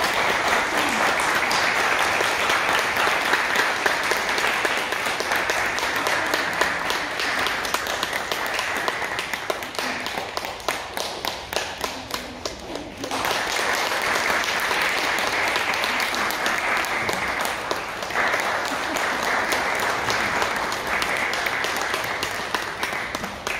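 Guests applauding: a dense patter of many hands clapping that thins about ten seconds in and swells again about thirteen seconds in.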